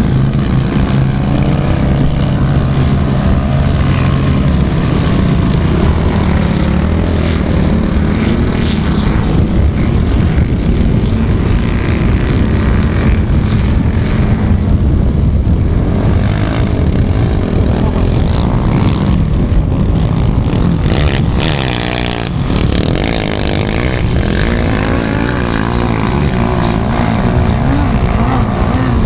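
A vehicle engine running steadily and loudly close by, with a rough noisy rumble over it. About 21 seconds in, the engine pitch swings up and down briefly.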